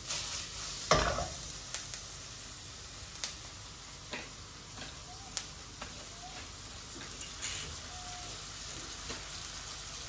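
Chopped onions frying in oil in a stainless steel wok over a gas flame: a steady gentle sizzle with scattered pops and ticks. There is a single loud knock about a second in.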